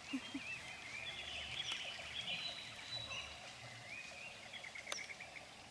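Wild birds chirping, with many short, repeated warbling notes over a faint background hiss; a single sharp click about five seconds in.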